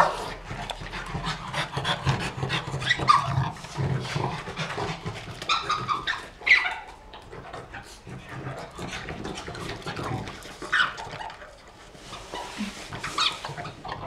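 Nervous French bulldog panting hard and unevenly while being restrained.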